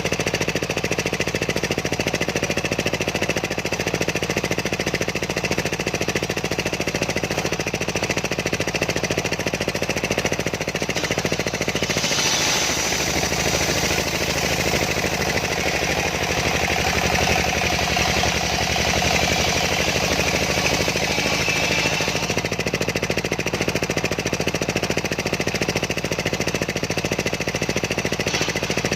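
Homemade engine-driven circular sawmill running steadily, its blade ripping through a large sengon log. The sound turns brighter and higher from about 12 to 22 seconds in.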